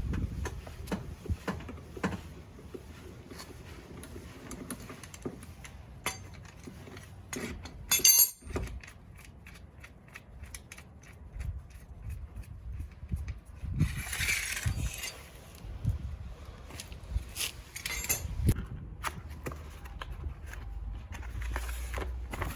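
Scattered metallic clinks, clicks and scrapes of tools being handled during a tyre change, with a sharp clatter about eight seconds in and a brief scraping rasp near the middle.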